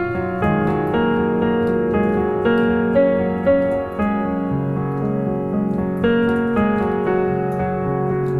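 Instrumental worship music: slow, sustained keyboard chords with piano-like notes, the chords changing about once a second.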